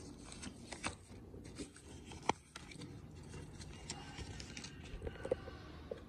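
Paper rustling and crackling as a folded paper instruction leaflet is handled and unfolded by hand, in many small irregular crinkles, with one sharper click a little over two seconds in.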